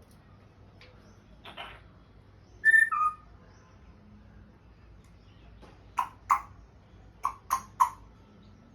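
African grey parrot giving a loud two-note whistle that steps down in pitch, about three seconds in. It follows with five short, sharp clicking calls over the last few seconds.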